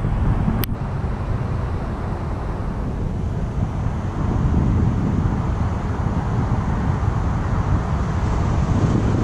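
Steady low rumble of road traffic mixed with wind on the microphone, with a single sharp click under a second in.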